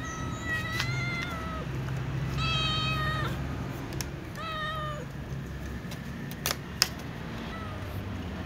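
Cats meowing to be fed: three long, high meows in the first five seconds and a faint short one near the end. Two sharp clicks come just before that last meow.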